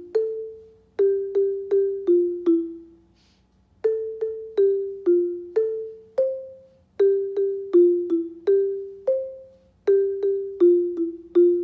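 Alto xylophone played with mallets: a melody of single struck wooden-bar notes, about two or three a second, each ringing briefly and fading, with a pause of about a second near three seconds in.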